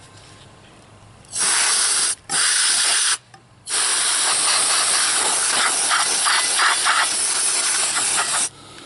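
Can of compressed air hissing in three blasts, two short ones under a second each and then one long blast of about five seconds, blowing dust out of an open radio tuning condenser.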